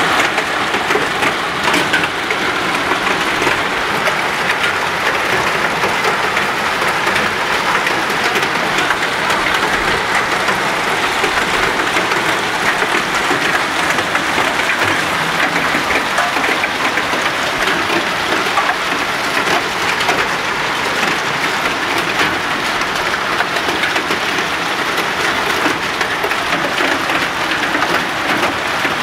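Hailstorm: hailstones and rain falling steadily on pavement, parked cars and roofs, a dense, even hiss thick with small ticks of hail striking.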